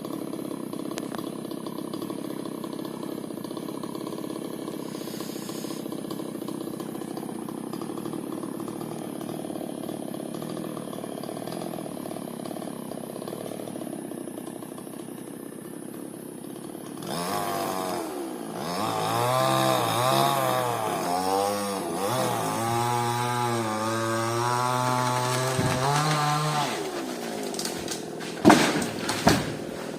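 Chainsaw running at low speed, then a little past halfway revving up and cutting for about ten seconds, its pitch rising and falling as the chain bites. Two sharp knocks near the end.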